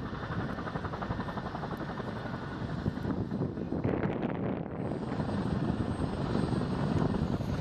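Several UH-60 Black Hawk helicopters flying overhead in formation, their main rotors beating rapidly and steadily.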